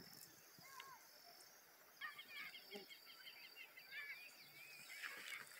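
Faint outdoor ambience of small birds chirping, breaking into a rapid chattering series about two seconds in, over a steady high insect drone.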